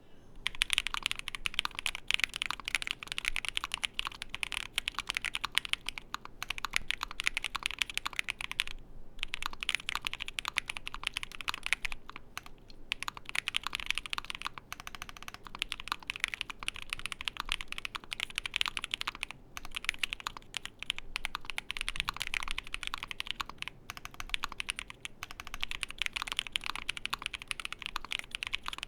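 Typing on an ai03 Vega custom mechanical keyboard with lubed Moyu Black linear switches in a polycarbonate plate, all foam fitted: a fast, continuous run of keystrokes broken by a few brief pauses.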